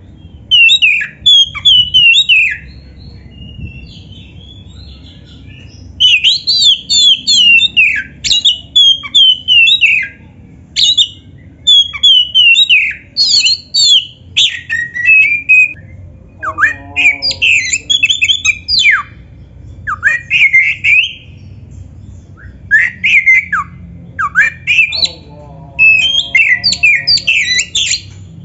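Oriental magpie-robin singing loud, fast, varied phrases of whistles, trills and squawky notes in bursts of a few seconds with short pauses between. Twice in the second half a lower-pitched note sounds beneath the song.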